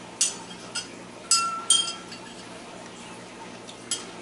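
Metal spoon clinking against a drinking glass while stirring in honey and sugar: five short ringing taps, the loudest two close together about a second and a half in.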